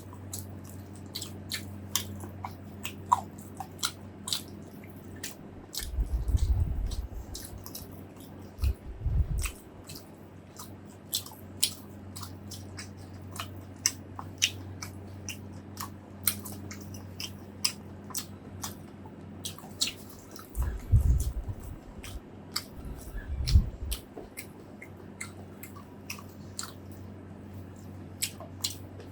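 Close-miked chewing and biting: many sharp, wet mouth clicks and smacks, with a few low thuds about six, nine, twenty-one and twenty-three seconds in, over a steady low hum.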